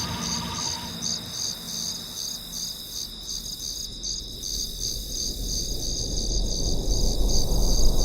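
Cricket chirping, a steady rapid pulsing trill. A low rumble swells in over the last few seconds.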